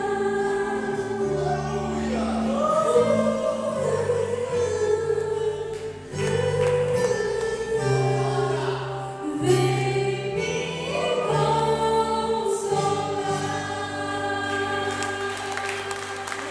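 Gospel worship music: a group of voices singing together over held bass chords that change every second or two. Clapping begins near the end.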